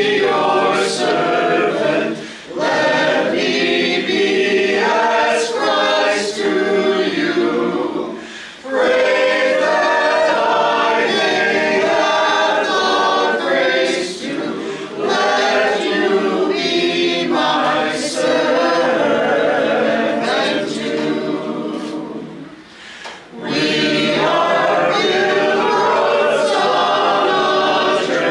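A small group of men and women singing together without accompaniment, in sung phrases with short breaks between them at about two, eight and twenty-two seconds in.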